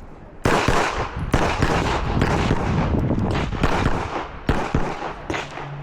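Glock 34 9mm pistol firing a rapid stage run: quick strings of shots with short pauses between them. The firing starts about half a second after the start-timer beep.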